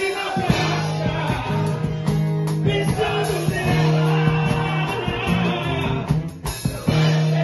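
Live band music with singing, a drum kit keeping the beat under held sung or played notes.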